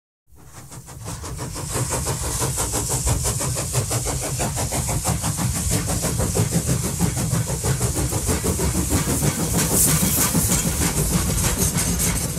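Battery-powered North Pole Express toy train running on its plastic track: a steady mechanical rattle with fast, even clicking, fading in over the first couple of seconds.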